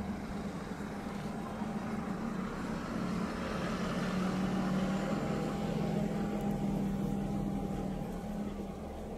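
A motor vehicle's engine running steadily with a low hum, growing a little louder in the middle and easing off near the end.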